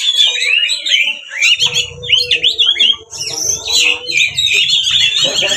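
Oriental magpie-robin singing a fast, unbroken run of varied chirps and whistles: the excited 'ngeplong' fighting song used to goad other magpie-robins into singing. A low rumble runs under it from about a third of the way in.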